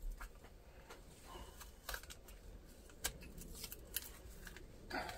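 Faint rustling of paper and sticky tape being handled and pressed down around a video head drum, with a few light clicks and a short louder rustle near the end.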